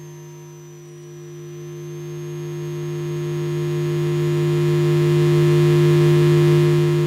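Electronic drone music: a low steady hum with a fast-pulsing higher tone above it. It swells louder from about a second in and eases off near the end.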